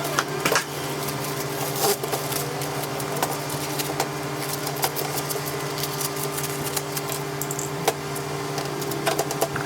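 Scattered light clicks and clinks of tools and parts being handled, over a steady mechanical hum.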